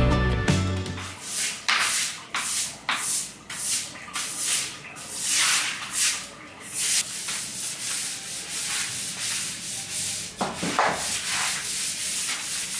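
Stiff-bristle push broom scrubbing a wet tiled floor: a run of rasping strokes, about one to two a second, turning lighter and more even after about ten seconds.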